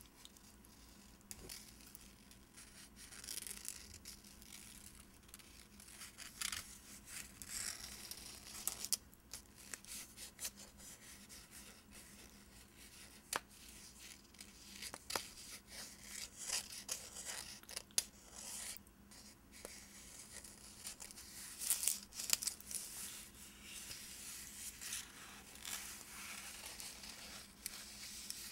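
Fingernails scratching and tracing over a gift-wrapped soap box's shiny metallic paper. The scratching comes in irregular, dry strokes, with a few sharp clicks.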